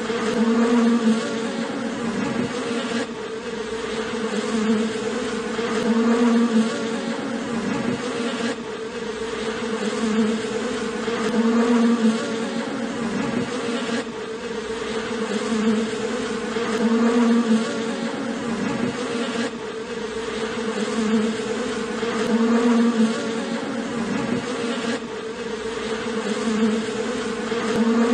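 A colony of honeybees clustered on their open wax combs, humming steadily, the drone swelling louder and easing off about every five or six seconds.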